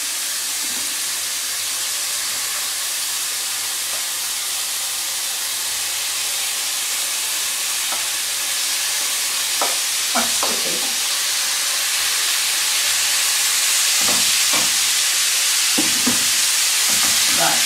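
Bacon, onion and chicken sizzling in a hot non-stick frying pan, a steady hiss that grows louder in the second half as the raw chicken pieces heat up. A few short knocks and scrapes of the chopping board and spatula against the pan.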